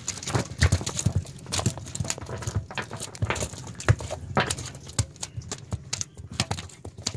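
Irregular wet knocks and thumps of fresh-caught fish slapping and being handled on a wooden boat deck.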